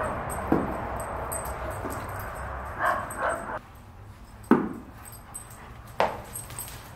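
A few short, sharp animal cries, a second or more apart, including a couple of brief whines; the sharpest comes about two-thirds of the way in.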